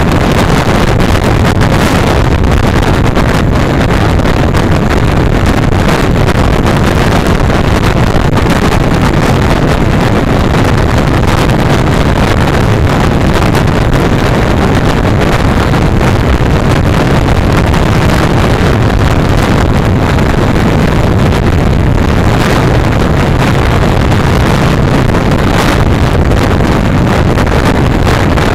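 Honda NC700X parallel-twin motorcycle at road speed: loud, steady wind rush on the microphone over the engine and road noise.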